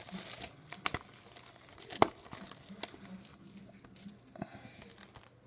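Plastic shrink wrap on a trading-card hobby box crinkling and crackling as the box is handled, in scattered sharp crackles. The sharpest is about two seconds in, and they thin out toward the end.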